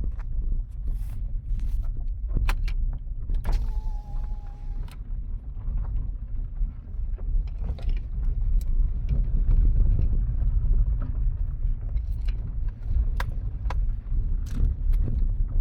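Kia Picanto driving on a gravel road: a steady low rumble of tyres and engine, with frequent sharp clicks and knocks from loose stones. A short steady squeak-like tone sounds about four seconds in.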